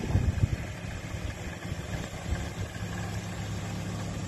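2002 Toyota Tacoma pickup's engine idling steadily. A few low buffets hit the microphone in the first half second.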